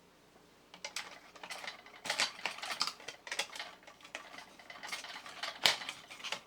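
Irregular clicks, scrapes and metallic clinks of two C-cell batteries being fitted into a vintage metal toy robot's battery box, starting about a second in, with a sharper knock near the end.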